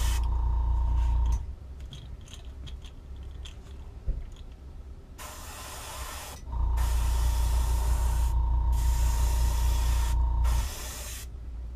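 Airbrush spraying at low pressure, about 10 to 12 psi, in several hissing bursts separated by short pauses. A small air compressor's motor hums loudly with a steady whine, briefly at the start and again for about four seconds in the second half.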